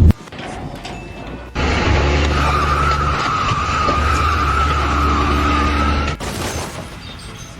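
A loud screech with a wavering high tone over a low engine hum, starting about a second and a half in, lasting about four and a half seconds and cutting off abruptly.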